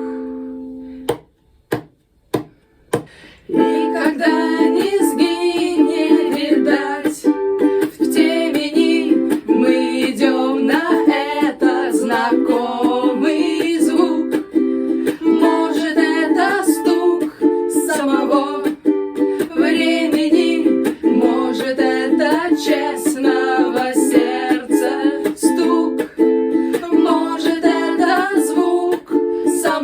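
Ukulele strummed in a steady, repeating rhythm as an instrumental passage, after a short break about a second in that holds a few sharp knocks.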